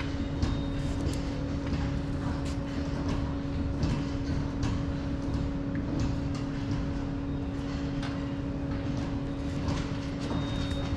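Dairy barn ambience: a steady machine hum with low rumble, broken by scattered short knocks and clanks.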